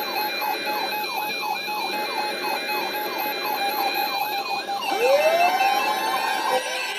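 Electronic siren in a rapid yelp, sweeping up and down about four times a second, changing about five seconds in to a slower rising wail, over hiss and steady whistling tones.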